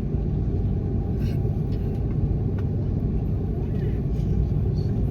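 Steady low rumble inside the cabin of an Airbus A330-300, from its engines and airflow.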